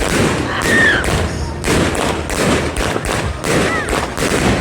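Thunder King 500-gram firework cake firing a rapid string of shots, about two bangs a second, with a couple of short whistling tones among them.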